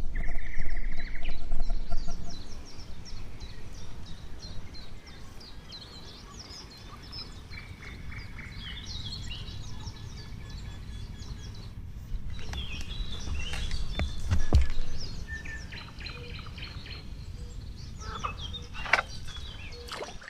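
Songbirds calling and singing in many short chirps and trills. A low rumble, the loudest part, fills the first couple of seconds, and there is one sharp knock about two-thirds of the way through.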